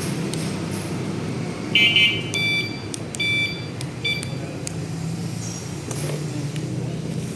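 A few short electronic beeps about two seconds in, over a steady low hum.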